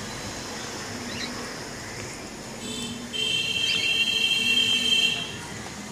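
Sun conures giving short high chirps while one feeds the other beak to beak. From about halfway in, a steady high whistling tone holds for about two and a half seconds, the loudest sound.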